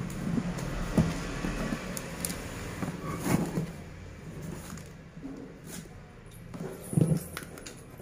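A cardboard carton being handled: the plastic strapping band scrapes and rustles along the box as it is pulled by hand, with a few sharp knocks spaced through.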